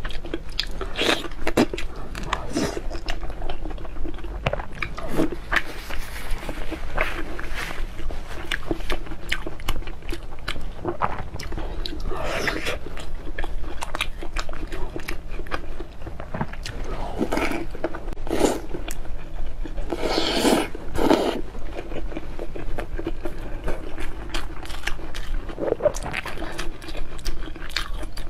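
Close-miked eating sounds: a person biting and chewing food, with a dense run of small crunches and mouth clicks. A few longer, louder mouth sounds come about halfway through and again around two-thirds of the way.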